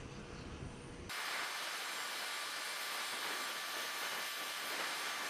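Jet aircraft noise on an airfield flight line: a low rumble that changes abruptly about a second in to a steady hissing turbine whine.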